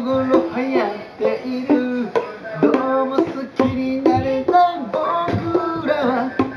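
Tuned plastic percussion tubes (Boomwhackers) being struck in quick succession, each hit a short pitched hollow note, with children's voices singing along.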